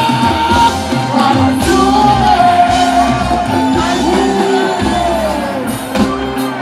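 Live reggae band playing on a concert PA, drums, bass and keyboards, with a male vocalist singing and chanting over it.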